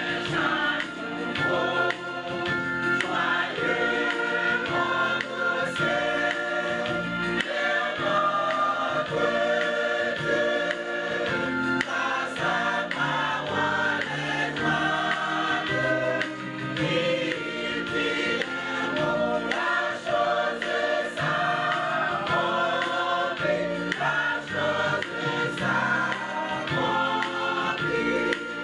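Large church choir singing gospel music, many voices together.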